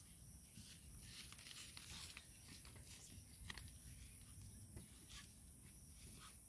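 Near silence: faint outdoor background with a steady high-pitched hiss and scattered soft ticks.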